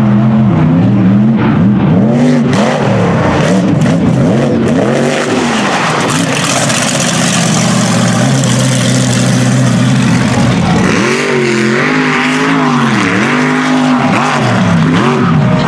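Mega truck engine revving hard, its pitch repeatedly swinging up and down as the throttle is worked. In the middle it holds a steady full-throttle run with a strong hiss over it.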